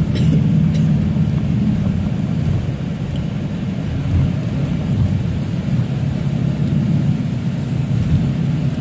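Steady low rumble of road and engine noise inside a moving vehicle at highway speed.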